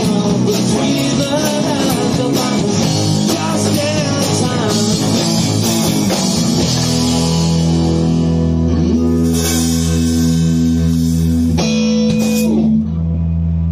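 Rock band playing live: electric guitar, bass guitar, drum kit and a singing voice. About seven seconds in they hit a long held final chord that rings out, with cymbal crashes over it.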